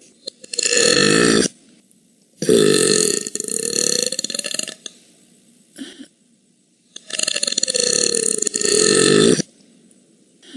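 A woman burping loudly: a short burp, then two long drawn-out burps of two to two and a half seconds each, with a brief small one between them.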